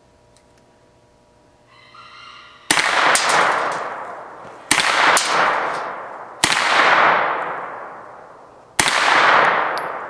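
A Thurion Defence 9mm carbine fires four single shots, spaced about two seconds apart, starting a couple of seconds in. Each loud crack has a long echoing tail, and a fainter crack follows some shots about half a second later.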